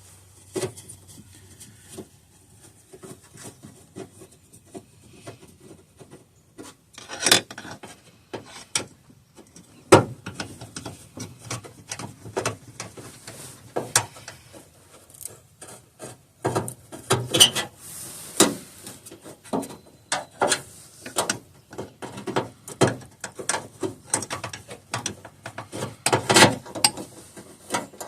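Hand tools working in a truck's engine bay: irregular clicks, knocks and scraping as connections and fasteners are worked loose, with louder clusters of clanks now and then.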